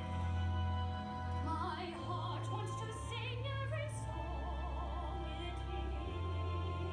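Female voice singing in a classical, operatic style with marked vibrato, over accompaniment with long sustained low notes.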